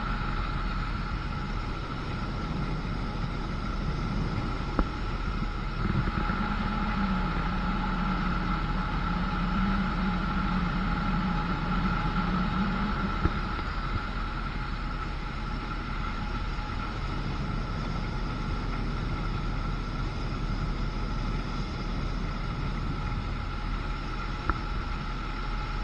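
Motorboat under way, its engine running steadily with a constant whine, over wind and water rushing past. A few brief knocks are heard about five, six, thirteen and twenty-four seconds in.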